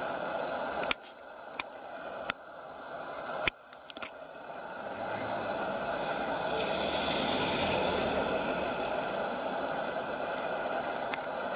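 Road traffic at an intersection: a vehicle passes, building up from about halfway in and fading after, over steady traffic noise. A few sharp clicks in the first few seconds.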